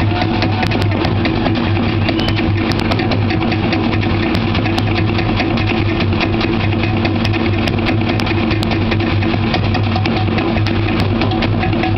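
Loud live show music with drumming, steady throughout and dense with drum strikes.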